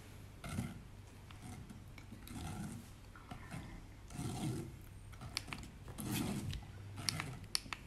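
Metal spoon scraping and pressing wet blended spelt pulp through a stainless steel mesh sieve, in repeated rubbing strokes, with several sharp clicks near the end.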